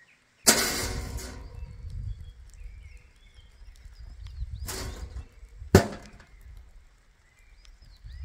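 Handling knocks from a black hard-shell case being closed on the ground: a loud clatter about half a second in, then two more knocks past the middle, the second a sharp click. Birds chirp faintly throughout.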